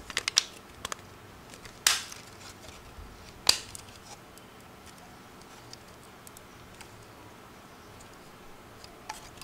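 Snap-together plastic Raspberry Pi 3 case being worked by hand, clicking as its parts are pressed and pulled apart. Two sharp clicks come about two and three and a half seconds in, with a few lighter ones at the start and near the end. The case is not fitting together correctly.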